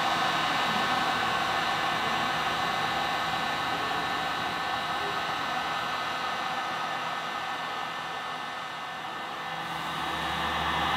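Electric heat gun blowing steadily while it shrinks a heat-shrink end cap onto a fuel line's heat shield sleeve. The sound dips a little about eight seconds in and swells back near the end.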